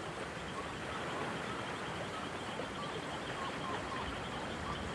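Steady, even rushing noise of a calm-sea ambience, with faint short chirps scattered through it.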